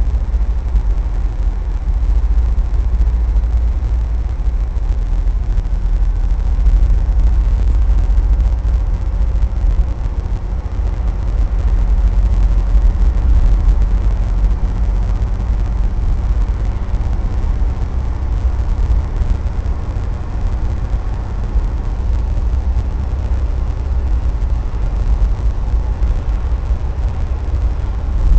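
Steady low rumble of a car driving at highway speed, heard from inside the cabin: engine and tyre road noise without a break.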